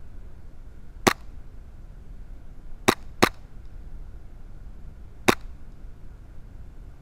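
Airsoft gun firing four single shots, each a short sharp crack: one about a second in, a quick pair near three seconds, and one more past five seconds.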